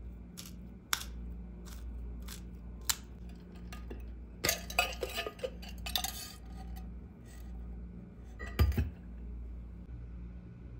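Clinks and knocks from a stainless steel drink tumbler being handled: a few light taps in the first three seconds, a dense run of clattering clinks in the middle, and one heavy clunk near the end as the lid is put on.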